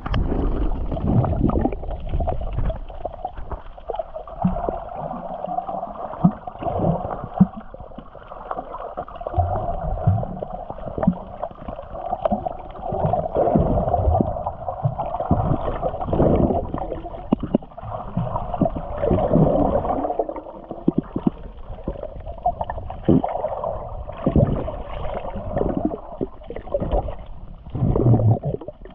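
Muffled underwater water noise: gurgling and sloshing against the camera with irregular low knocks throughout, heard through a submerged GoPro Hero 9.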